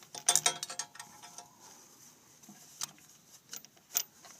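Small metal clicks and taps of an 8 mm wrench turning a loosened bolt on a 6.0 Powerstroke's high-pressure oil pump cover: a quick cluster of clicks near the start, then a few single clicks.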